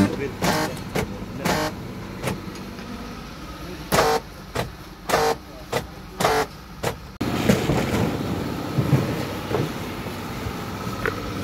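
Power door lock actuators of a 2018 Mitsubishi Xpander clacking, about a dozen short lock and unlock strokes in quick irregular succession as the central lock switch is toggled. Partway through this gives way to a steadier background hum with a few faint knocks.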